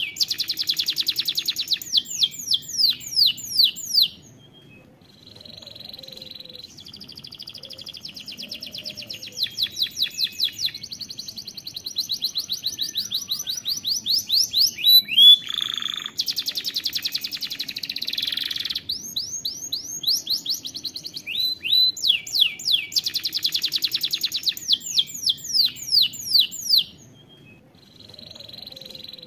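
Domestic canary singing a long, fast song of rapid trills: quick runs of repeated down-sweeping notes and buzzy rolls. It breaks off briefly about four seconds in and again near the end.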